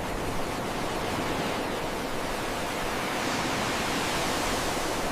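Ocean surf: a steady hiss and wash of waves breaking, with no separate crashes standing out.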